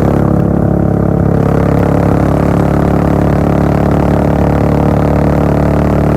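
Royal Enfield Bullet 500's single-cylinder engine running through a Gold Star-style full-system exhaust, a steady, loud exhaust note while cruising on the highway.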